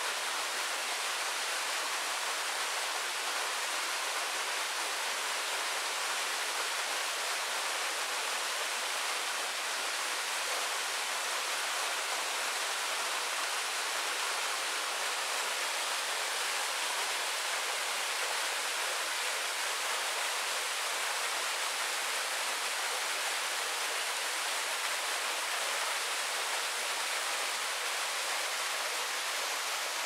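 Steady rush of water from a forest waterfall, falling and splashing without a break.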